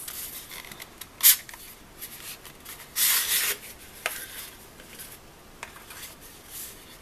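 Rustling and rubbing from a foam-lined pen box being handled, with a sharp brief scrape about a second in, a longer scraping hiss around three seconds, and a few light clicks.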